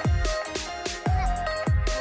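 Electronic background music with a steady beat: deep drum hits that drop sharply in pitch, under a synth melody.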